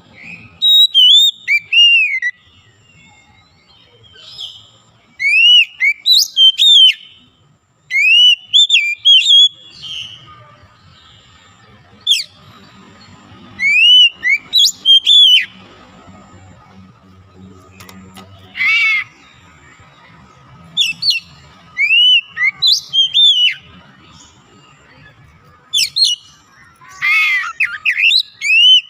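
Oriental magpie-robin (kacer) singing: phrases of loud, clear whistled notes that arch up and down, broken by pauses of a second or more, with a couple of harsher, buzzier notes among them.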